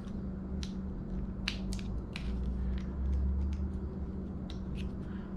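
Scattered light plastic clicks and taps from handling and fitting a wiper blade's plastic adapter, over a steady low hum.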